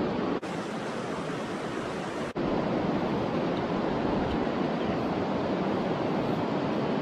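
Steady rush of flowing river water, a continuous even hiss, broken by two momentary dropouts, one near the start and one a little over two seconds in.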